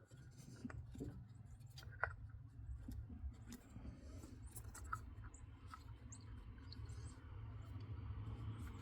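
Faint, scattered small clicks and light handling noises from hands and tools working around the engine's coil wiring, over a low steady hum.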